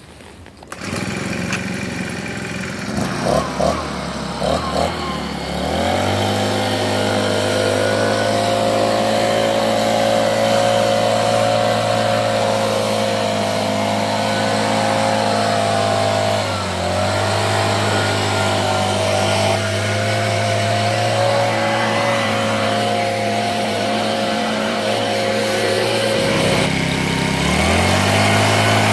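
Motorised leaf blower starting up, sputtering unevenly for a few seconds before settling into a steady high run while blowing wood chips off the grass. It dips briefly once, drops to a lower idle near the end, then revs back up.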